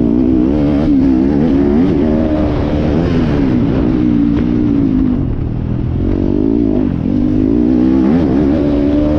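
Motocross dirt bike engine heard close up from the rider's helmet camera, its pitch repeatedly rising and falling as it revs up and eases off through the ride, dropping back a little about five seconds in.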